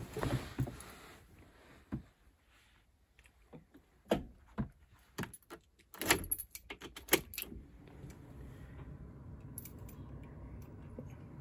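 A bunch of keys jangling as a key is pushed into a Fiat van's ignition lock and turned, giving a run of sharp metallic clicks and jingles. About two-thirds in, a faint steady hum sets in as the ignition comes on.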